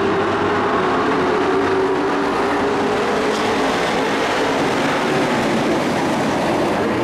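Engines of a pack of dirt-track racing pickup trucks running around the oval, blending into a steady, loud drone.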